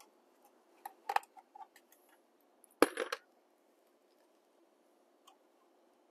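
Light clicks and taps of a small screwdriver and small parts being handled at an open EV charger housing, with a sharper clink nearly three seconds in.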